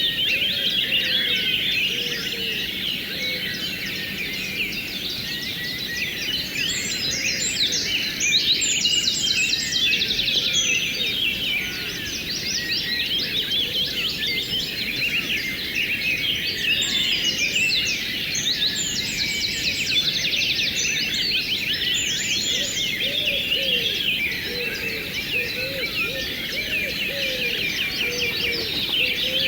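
A dense chorus of many birds chirping and trilling together, over the steady rush of flowing river water.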